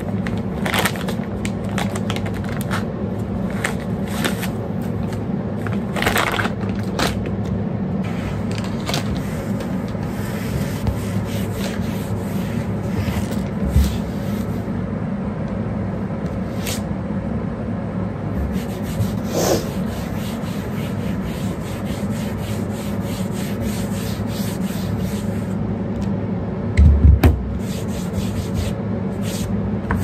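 Repeated rubbing and scrubbing strokes from household cleaning over a steady low hum, with a low knock about halfway through and a heavier thump near the end.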